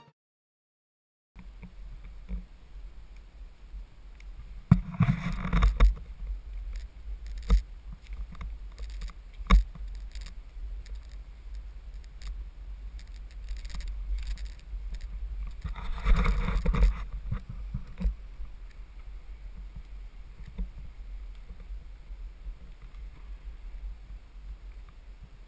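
Wind rumbling on an action camera's microphone, starting after a second of silence, with two louder gusts about five and sixteen seconds in and a few sharp knocks of the camera being handled.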